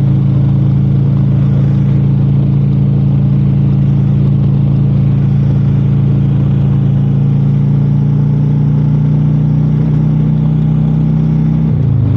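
Touring motorcycle's engine running at a steady pace while riding, its note dropping sharply just before the end.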